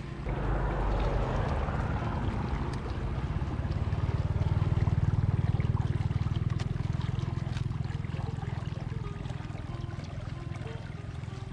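Floodwater rushing steadily down a channel from an overflowing reservoir, swelling louder midway and then easing a little.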